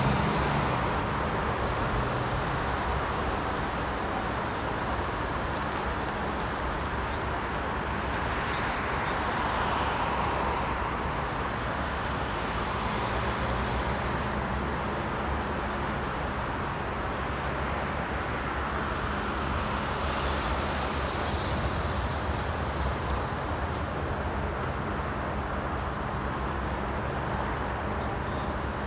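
Steady road traffic noise, growing louder a few times as vehicles pass.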